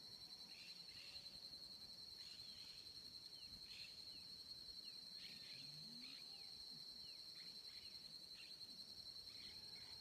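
Faint dusk chorus of insects: a steady high-pitched trill, overlaid by many short bird chirps and calls scattered throughout. A brief low rising call comes about five and a half seconds in.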